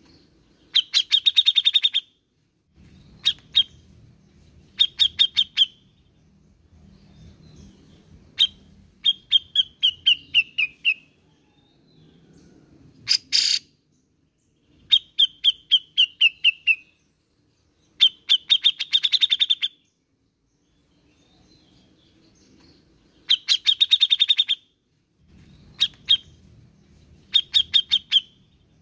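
Grey-cheeked bulbul (cucak jenggot) singing in loud bursts of rapid chattering notes, about ten phrases with short pauses between them. Some phrases fall in pitch, and one harsh rasping note comes about halfway through.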